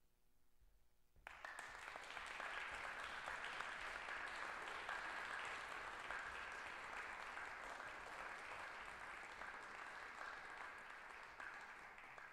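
Audience applauding, starting suddenly about a second in, holding steady and tapering off near the end.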